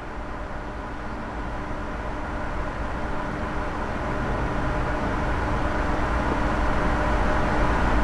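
Steady rumbling background noise with a faint hum in it, growing gradually louder.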